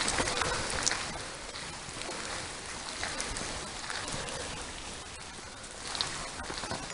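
Steady patter of falling water with scattered drips, a little louder in the first second.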